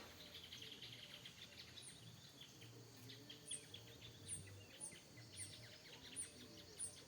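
Faint outdoor ambience of small birds chirping and insects calling. A thin, very high chirp repeats over and over from about two seconds in.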